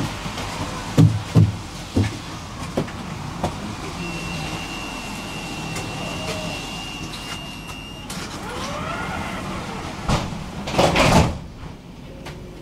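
Tram standing at a stop: several heavy thumps in the first three seconds, then a steady high door-warning tone for about four seconds. About ten seconds in, the sliding doors close with a loud burst of noise.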